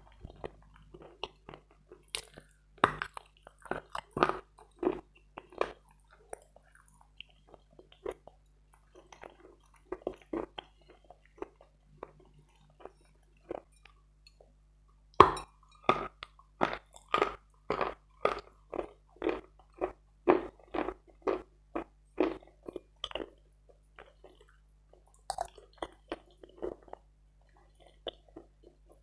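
Close-up chewing of hard Bogorodsky chalk: sharp dry crunches as it is bitten and ground between the teeth, scattered at first, then a steady run of about two crunches a second through the middle, the loudest bite about halfway in, thinning out near the end.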